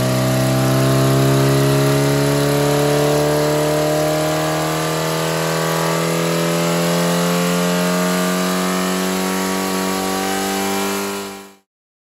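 Race-tuned Ford Pinto overhead-cam four-cylinder engine running under load on an engine dyno. Its revs climb slowly and steadily through a power run, then the sound cuts off suddenly near the end.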